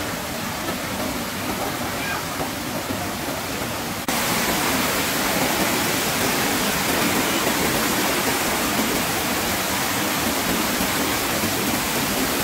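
Rushing water of a rocky mountain stream and small waterfall, a steady hiss. About four seconds in it cuts abruptly to a louder, closer stretch of the same water.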